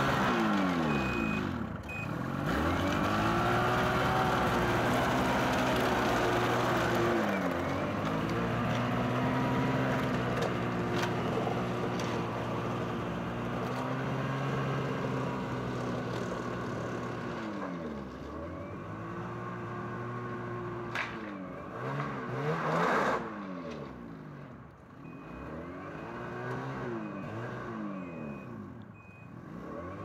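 Ski-Doo 600 HO E-TEC two-stroke twin engine running at low speed, its revs rising and falling in repeated short blips as the snowmobile is driven slowly. A short repeating high beep sounds near the start and again near the end.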